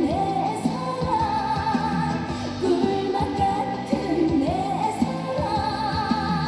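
A woman singing a trot song live into a handheld microphone over amplified backing music.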